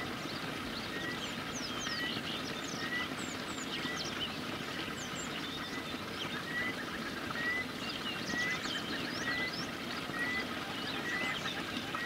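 Birds calling and chirping in a garden. One repeats a short rising note about every 0.7 s, and others give quick high chirps over a steady background hiss.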